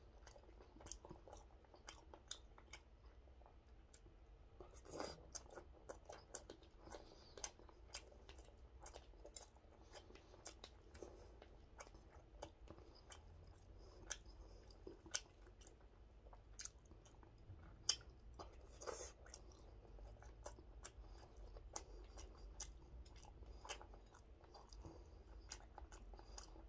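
Faint chewing of rice and soup, with scattered small clicks of a spoon against a bowl; a couple of louder clicks come about five seconds in and again near nineteen seconds.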